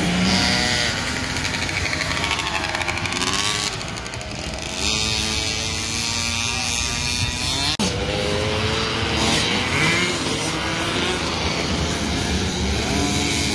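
Several youth motocross bikes racing, their engines revving up and down, with several overlapping engine notes rising and falling as the bikes pass.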